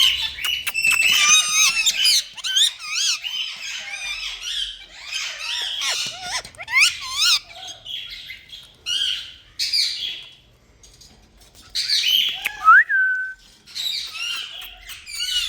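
Indian ringneck parrot (rose-ringed parakeet) chattering in quick runs of squawks, chirps and wavering whistled calls, with a short lull about two-thirds of the way through and a single rising-and-falling whistle after it.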